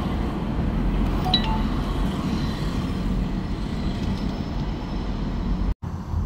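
Car driving on the road, a steady low rumble of road and engine noise heard from inside the cabin. A short high electronic chime sounds about a second and a half in, and the sound cuts out for a moment near the end.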